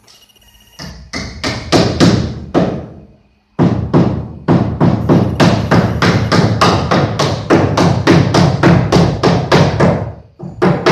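Rapid, evenly spaced knocks, about three to four a second, with a short break about three seconds in.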